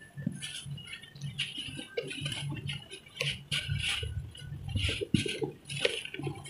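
Dry cement chunks crumbling and breaking in the hands, with crumbs and powder falling onto a heap of cement dust: an irregular run of gritty crunches and soft patters, several a second.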